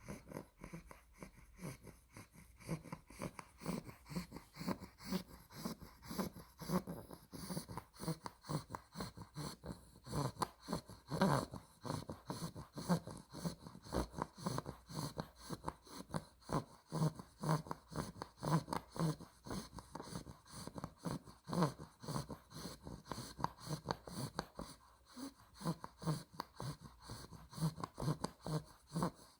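A two-month-old Olde English Bulldog puppy snoring in its sleep, with quick, even snoring breaths about two a second.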